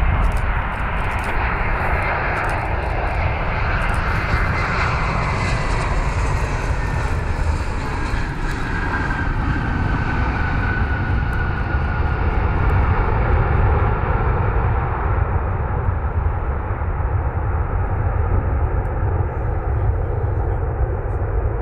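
Airbus A321's twin CFM56 turbofan engines as the jet lands and rolls out. A steady loud jet roar carries a whine that slides down in pitch over the first fifteen seconds or so, and the high end fades toward the end.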